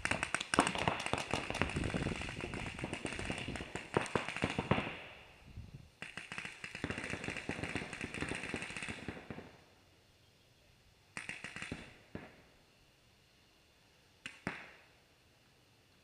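Paintball markers firing rapid strings of shots: long runs of fast pops through about the first five seconds and again until about nine seconds in, then two short bursts near eleven and fourteen seconds.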